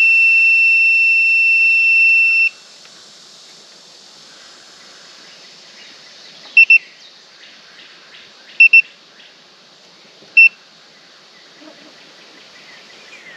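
Digital multimeter beeping: a steady high continuous beep for about two and a half seconds that cuts off suddenly, then three short double beeps a couple of seconds apart. The continuous tone fits the meter's continuity beeper sounding across the PTO clutch coil, which reads only 0.2 ohms: a shorted clutch magnet.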